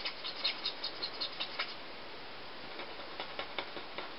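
Tip of a Stampin' Up Blendabilities alcohol marker scratching over cardstock in quick short strokes, stopping for about a second in the middle, then stroking again.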